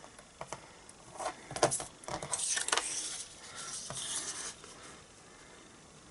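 Paper trimmer and cardstock being handled: a few sharp clicks, then two scraping slides about two and four seconds in, card sliding on the trimmer or its blade running along the rail.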